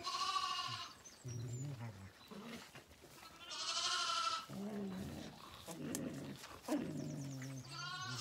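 Zwartbles lambs bleating: three high, wavering bleats, one at the start, one about three and a half seconds in and one near the end.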